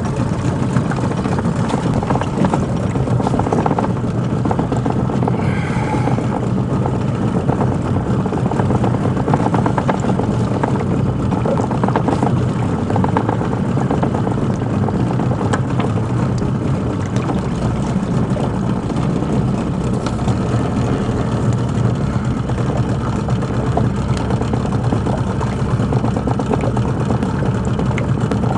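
Small boat's outboard motor idling steadily with a low, even hum.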